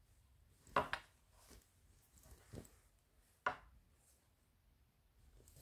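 A few sharp knocks and taps, two close together about a second in and two more later, from the purse and small items being handled.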